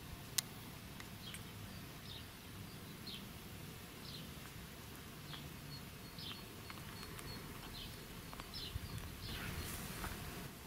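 A bird calling over and over in short, faint chirps that slide downward in pitch, roughly one a second, with a single sharp click about half a second in.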